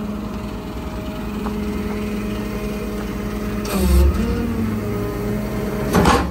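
Chevy 6500 tow truck's Duramax diesel engine idling steadily, with a dull thump about four seconds in and a sharp knock near the end.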